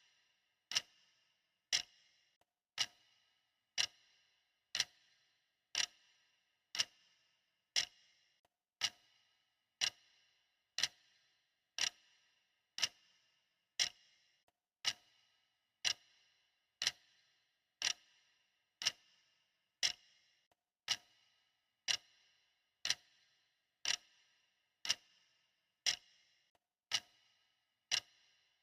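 Clock-style ticking, one sharp tick about every second at a steady, even pace. Each tick has a short ringing tail.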